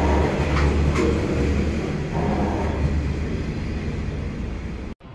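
Steel bogie coal hopper wagons of a freight train rolling past: a heavy low rumble with a few sharp clicks from the wheels crossing rail joints, fading as the last wagon clears. The sound cuts off suddenly near the end.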